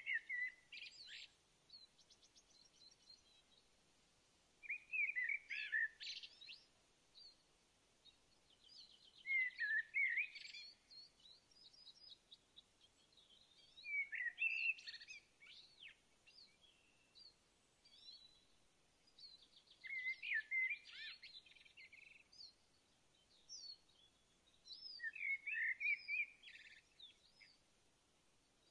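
A songbird singing a short warbled phrase about every five seconds, with a faint rapid trill from another bird in the gaps between.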